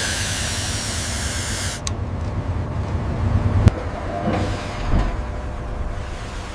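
A loud hiss of escaping air that cuts off sharply nearly two seconds in, then a single sharp click and a dull thump over a steady low rumble.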